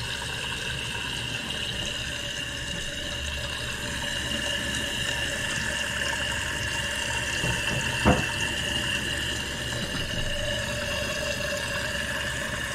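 Toilet tank fill valve running as the tank refills: a steady hiss of rushing water with a high, steady whistling tone in it. A single short knock about eight seconds in.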